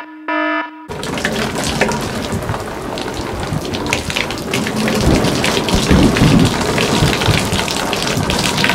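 One short electronic tone at the very start, then heavy rain pouring and splashing, with a deep rumble swelling through the middle.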